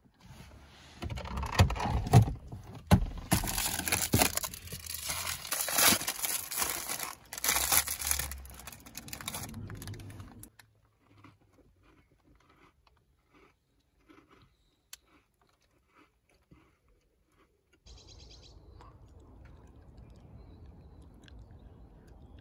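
A biscuit wrapper crinkling and a biscuit being bitten and crunched for about ten seconds, then soft chewing with faint clicks. Near the end a steady low background hiss comes in.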